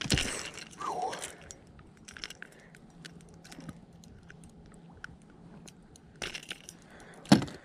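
Scattered small clicks and rattles of a fishing lure and its hooks being worked out of a bass's mouth by hand, with one sharp knock near the end.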